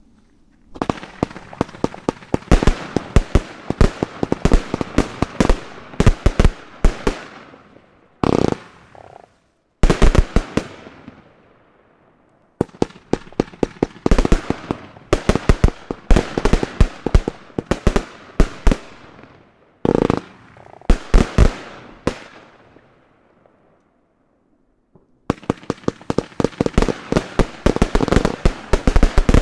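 Albert Feuerwerk 'Candy Mountain' compound firework battery firing volleys of sharp shots and bursts in quick succession. It starts about a second in and is broken by several short pauses between sequences.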